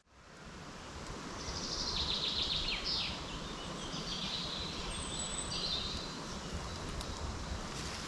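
Woodland ambience: songbirds singing, with a fast trill of repeated high notes about a second and a half in and further short phrases over the next few seconds, over a low steady rumble.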